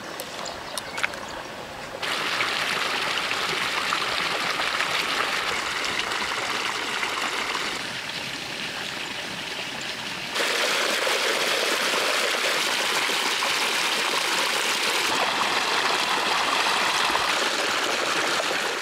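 Water gushing steadily out of an open pipe outlet and splashing into a shallow pool. It gets louder about two seconds in, eases a little around eight seconds, and is loudest from about ten seconds on.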